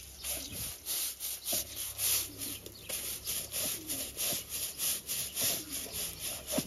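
Stiff long-handled push brush scrubbing wet black plastic poultry-coop floor grates, back-and-forth strokes about two a second.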